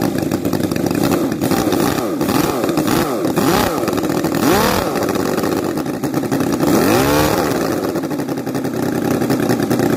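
Home-built 57 cc six-cylinder boxer model engine running and blipped by hand at the carburettor: its pitch rises and falls several times, highest about halfway and about seven seconds in.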